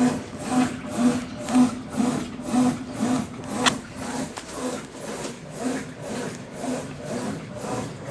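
Consul Facilite 10 kg top-loading washing machine running a test wash after a mechanical overhaul, its agitation going back and forth in an even rhythm of about two strokes a second. There is one sharp click about three and a half seconds in.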